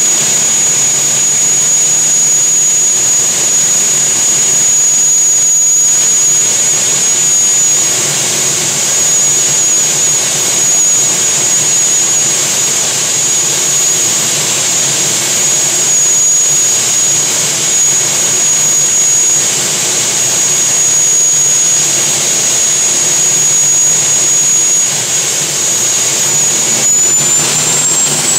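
The gas turbine engine of the Squirt 2 turbine jet boat running steadily, giving a loud, constant high-pitched whine over a rushing noise. Near the end the whine rises in pitch as the turbine spools up.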